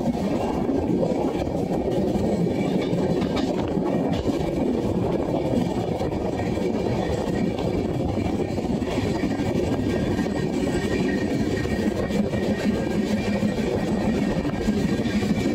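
Passenger train running along the track: a steady, loud rumble of the coach and its wheels on the rails, with a faint clatter.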